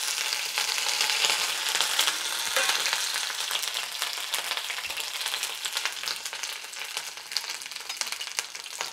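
Curry leaves, mustard seeds and cumin seeds sizzling in hot oil in a stainless steel pan, a steady hiss with many small crackles and pops: the tempering stage of a South Indian gravy. The sizzle is loudest in the first few seconds, then eases slightly.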